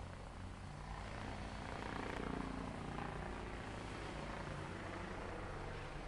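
A faint, steady low mechanical rumble like distant heavy machinery or an engine, swelling briefly about two seconds in.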